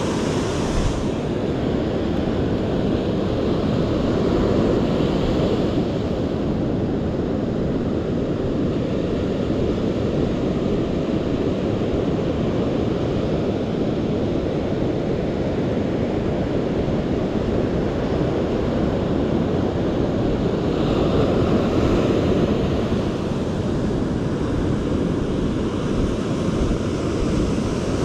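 Surf breaking and washing up a sandy beach, a continuous rushing that swells a little twice, with wind buffeting the microphone.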